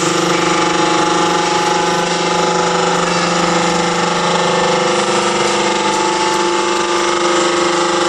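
Hydraulic drum press's power unit running: an electric motor and hydraulic pump giving a steady hum with a whine on top, while the ram presses a steel drum flat.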